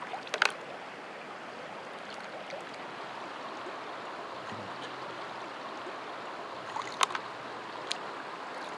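Shallow stream water flowing steadily, with a few short sharp splashes and clicks as a hand net and plastic tray are worked in the water: about half a second in, and twice around seven to eight seconds.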